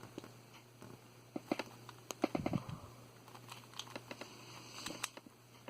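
Valk 3 speedcube being handled and turned, giving scattered small plastic clicks and clacks as its layers move.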